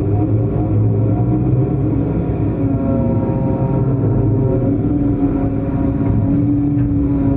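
Long-arm excavator working, its diesel engine and hydraulics running steadily with sustained tones that shift slightly in pitch as the load changes.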